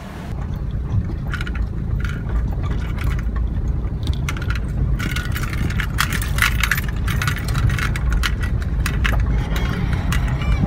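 Car driving along a wet road covered in loose gravel, heard from inside the cabin: a steady low road rumble with irregular clicks and rattles as the tyres run over the stones, busiest about halfway through.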